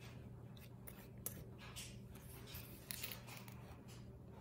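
Faint scraping and a few light clicks of a plastic measuring spoon scooping flour in a metal bowl, over a low steady hum.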